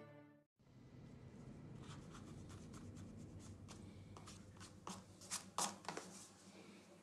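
Sheets of drawing paper being handled and shuffled on a glass-topped desk: a run of short, crisp rustles and taps from about two seconds in, loudest near six seconds. A music tail fades out at the very start.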